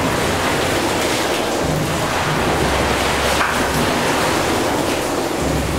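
Gimson steam beam pumping engines running slowly together: a steady noisy wash, with a deep rumble that swells about two seconds in and again at the end, and a brief hiss about halfway through.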